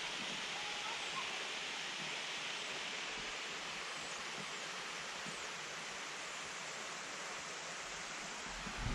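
Steady rush of falling or flowing water from the falls and creek, with a low thump near the end.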